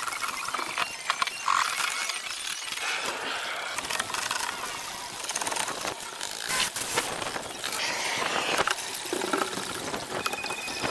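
Busy clatter of knocks, taps and scrapes from hand-tool work on bamboo, with many short sharp hits.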